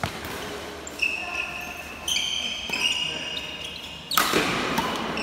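Badminton rally: rackets hitting the shuttlecock and sneakers squeaking on the court floor, with a loud sharp hit about four seconds in.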